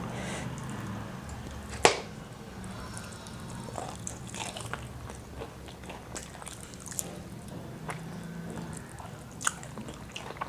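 Close-miked eating of crispy fried chicken: chewing with wet crackles and mouth clicks, and one sharp, loud crunching bite about two seconds in.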